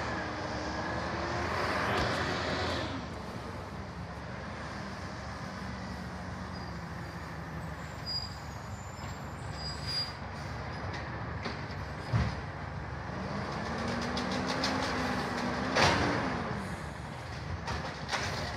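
Distant Peterbilt automated side-loader garbage truck working a residential route. Its engine revs up and down twice, and sharp metallic clanks come about 2, 12 and 16 seconds in, the one near the end the loudest.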